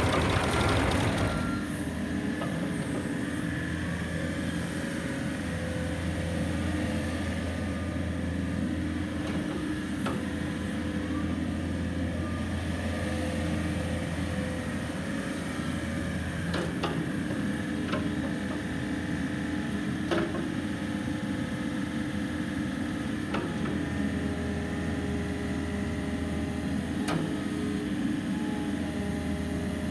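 Komatsu PC55MR-3 midi excavator's diesel engine running steadily, with a whine from the hydraulics as the machine slews and works its boom and arm. A few sharp clunks come now and then.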